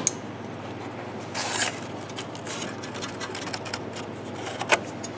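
Light metallic clicks and a short scrape as hands work the bolts and flange of a new exhaust flex pipe and brush the heat shield under a car, over a steady low hum.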